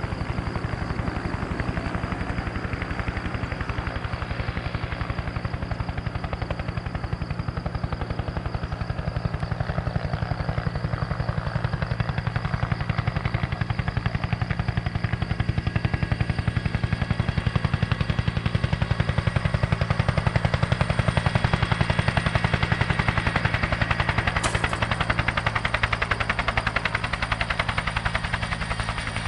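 Bell 212 helicopter with its two-bladed main rotor beating in a rapid, even slap over the whine of its turbine engines. It grows louder about halfway through and eases slightly near the end.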